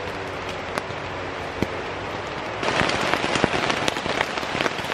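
Heavy rain falling on a tent, with many individual drops ticking sharply against it; the rain gets louder about two and a half seconds in.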